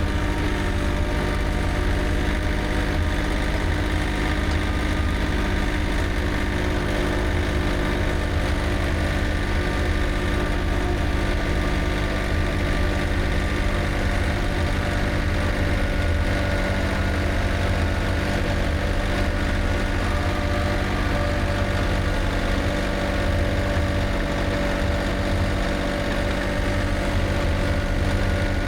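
Old John Deere tractor engine running at a steady speed, an even, unchanging drone.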